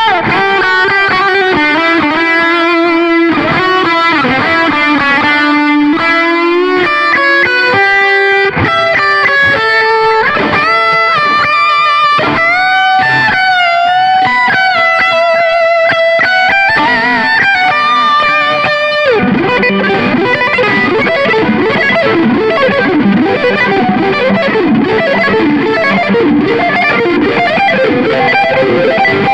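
Stratocaster-style electric guitar played through a Valeton GP-100 multi-effects unit on an overdriven lead tone, boosted and with delay to lengthen the sustain. It plays a melodic lead line with string bends and vibrato, then moves into a faster, denser passage about nineteen seconds in.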